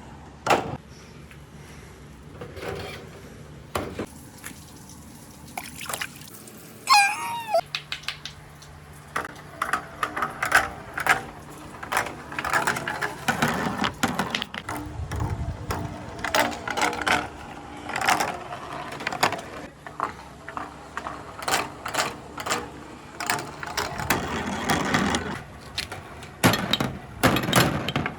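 Marbles clicking and clattering down a handmade marble run, with water running and pouring along the course. The clicks come sparsely at first and crowd together from about a third of the way in.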